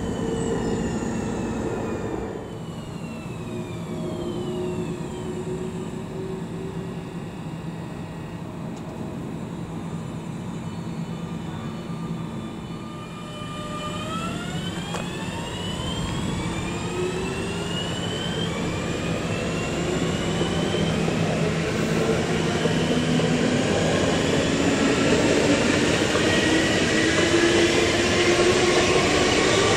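Alstom Coradia Continental electric multiple unit. Its traction motors whine in falling tones early on, then it stands with a steady low hum. About halfway through it pulls away, and the motor whine rises in pitch and grows louder as it speeds up.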